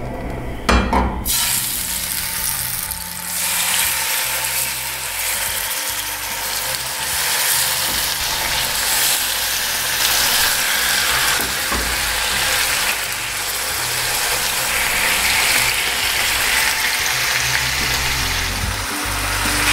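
Marinated pork pieces sizzling as they sear in hot oil in a frying pan. There is a knock about a second in as meat goes into the pan, then the sizzling builds and stays steady.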